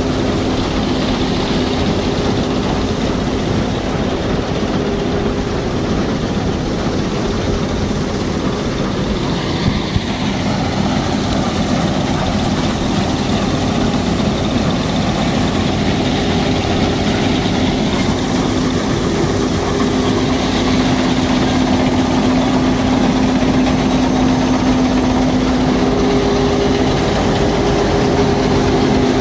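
John Deere 1065 combine harvester running steadily, a continuous diesel engine drone with a steady hum of machinery.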